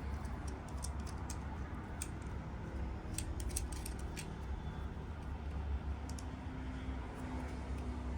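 Packaging being handled and opened by hand: a scattering of small sharp clicks and snips, thickest two to four seconds in, over a steady low rumble.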